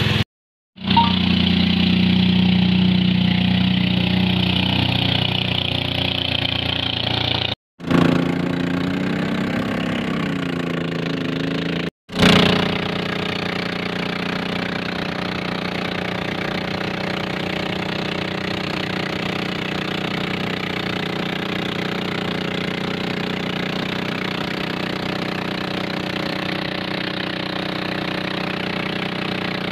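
Small boat engine running steadily as a wooden river boat moves under way, over the rush of water. The sound drops out briefly three times in the first twelve seconds.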